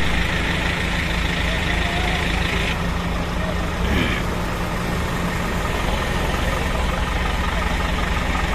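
Diesel engine of a backhoe loader running steadily at idle close by, with crowd voices in the background.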